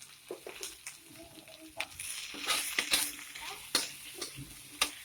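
Food sizzling in a frying pan while a spatula stirs it, with repeated clicks and scrapes of the utensil against the pan. The sizzle swells from about two to three seconds in.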